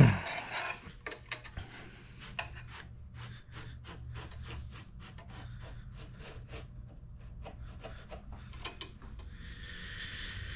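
A scooter's greased steel brake cable being threaded back through its housing: a run of quick rubbing scrapes and small clicks. A single sharp knock comes at the very start.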